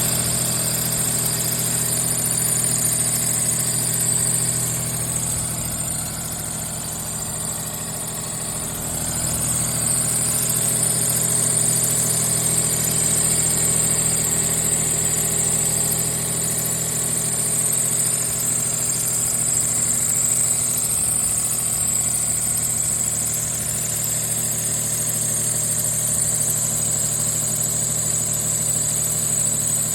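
Daihatsu Mira L275's three-cylinder engine idling with an abnormal noise, a steady high-pitched noise over the low engine note. It eases off slightly for a few seconds before settling back.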